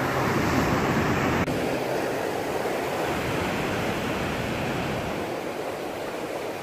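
Rough sea surf breaking and foaming over rocks: a steady rush of water.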